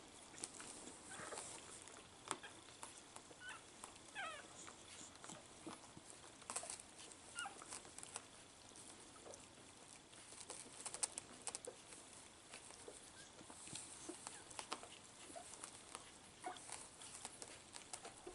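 Faint, scattered squeaks of three-day-old cockapoo puppies, with a cluster of short squeals about four seconds in, over soft clicks and rustling.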